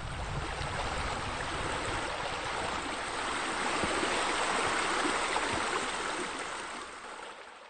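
Steady rush of running water, fading out near the end.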